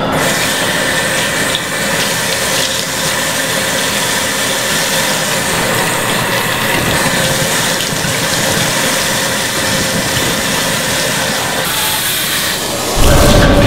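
Water running steadily from a bathroom faucet into a sink while hands are washed under the stream. Near the end a louder, deeper rumbling sound cuts in suddenly.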